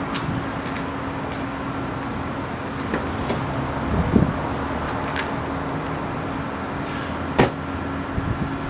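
A car's rear door is opened with a latch click about three seconds in, then swung shut with a solid slam, the loudest sound, near the end. A steady low outdoor hum runs underneath.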